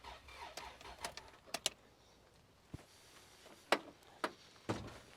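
A 2003 Isuzu Rodeo's engine cranking on the starter at an even rhythm without catching, a crank-no-start, until the cranking stops about a second in. Several separate sharp clicks and knocks follow.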